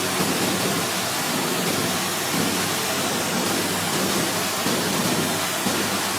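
Steady loud rushing noise of heavy rain and airflow in an airliner cockpit during a landing in a severe storm.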